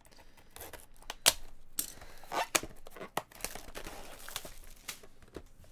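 Plastic shrink wrap on a sealed trading-card box being slit with a small knife and then torn off, with a run of irregular crinkles and sharp crackling snaps, the loudest about a second in.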